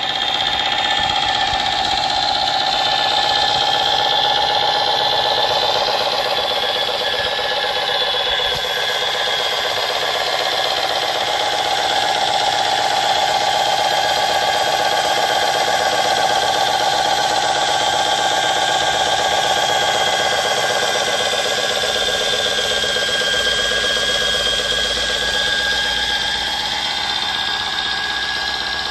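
Simulated diesel truck engine from a 1/14-scale RC truck's sound unit, running steadily through a small speaker with a ringing tone on top.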